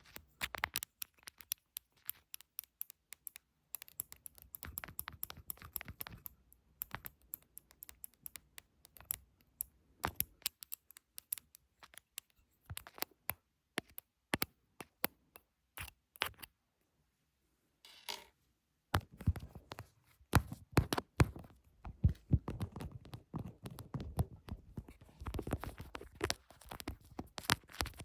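ASMR tapping and scratching: a run of quick, sharp taps mixed with stretches of scratchy rubbing, pausing briefly past the middle, then denser and louder scratching through the last third.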